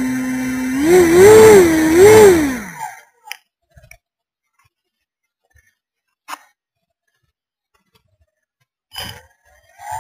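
Simulated engine sound from the Multiplex Blizzard RC snow groomer's sound module. A steady idle revs up twice with a wavering pitch, then winds down and cuts off about three seconds in. After a few seconds of near silence with faint clicks, there is a click near the end as the engine sound begins to rise again.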